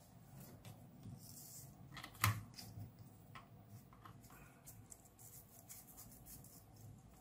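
Quiet handling sounds of a USB cable plug being fitted into the USB port of a bare phone-charger circuit board: one sharp click about two seconds in, then a few lighter clicks and rustles.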